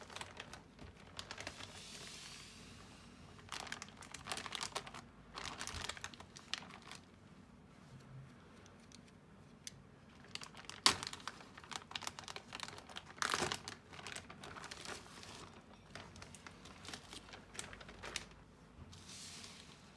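Plastic mailer bag crinkling and rustling in irregular bursts as it is handled, cut open with a snap-off utility knife and pulled off a bubble-wrapped box. A single sharp click about eleven seconds in is the loudest sound.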